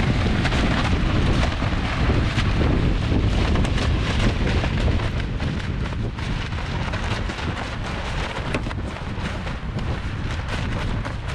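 Strong wind buffeting the microphone, with a loose tarp flapping and snapping in the gusts.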